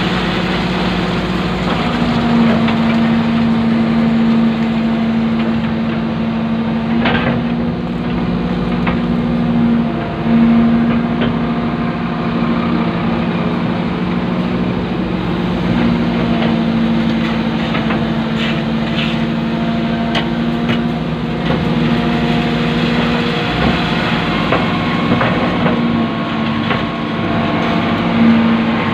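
Excavator's diesel engine and hydraulics running steadily, heard from inside the operator's cab as a low hum, with a second, higher hum that drops out and comes back several times as the arm works. A few sharp clicks or knocks, one about seven seconds in and a cluster a little past the middle.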